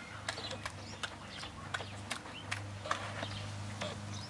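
Border collie puppy smacking its lips and clicking its tongue as it works at peanut butter stuck in its mouth: a run of irregular sharp, wet clicks, several a second.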